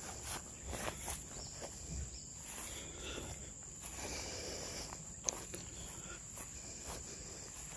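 Insects keeping up a steady high-pitched drone, with scattered light rustling and soft knocks and one sharper tick about five seconds in.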